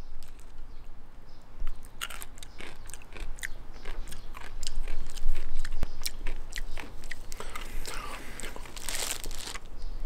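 Close-up biting and chewing of a piece of deep-fried Amur starfish arm: many small, sharp crunches and clicks from the mouth that keep coming through the whole chew.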